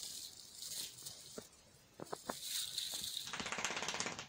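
Rustling and crackling of artificial Christmas tree branches being handled while a bauble is hung, with a few light clicks and a denser scratchy rustle near the end.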